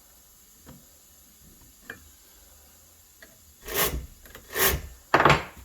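Chainsaw chain pulled by hand around the bar, rasping along the bar groove in three short strokes about half a second apart near the end, after a few faint clicks. This checks the freshly tensioned chain still turns freely.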